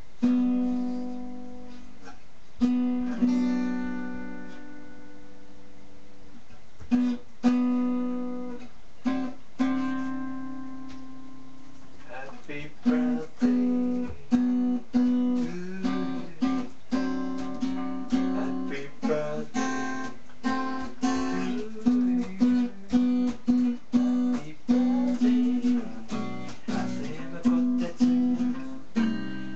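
Acoustic guitar strummed: a few slow chords left to ring for several seconds each, then about halfway through a steadier rhythm of quicker strums.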